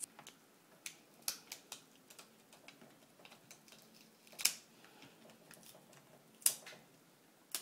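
Scattered light clicks and crackles of a glued-down Toshiba Satellite L745 LCD panel being pried and peeled off its adhesive. There are two louder short rasping peels, about four and a half and six and a half seconds in.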